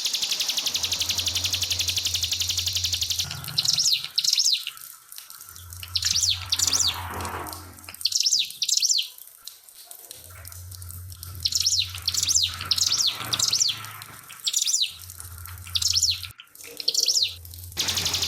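Ciblek (prinia) song on a bird master track: a fast, buzzy rattle for the first three seconds or so, then clusters of short, sharp, high calls repeated one after another. Trickling water runs underneath.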